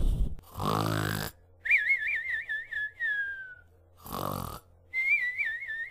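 Cartoon-style snoring from the animatronic bear's voice track as it falls asleep: a rasping snore in, then a high whistled breath out that warbles and glides down in pitch, twice over. A short low thump comes right at the start.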